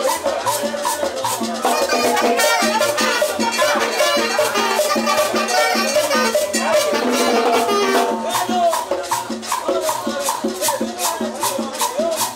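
Live cumbia from a small band with saxophone and upright bass, over a steady rattling shaker beat.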